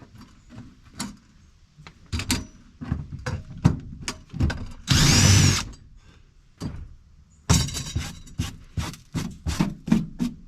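Knocks and clatter of items and parts being handled, with a power drill running for about half a second in the middle.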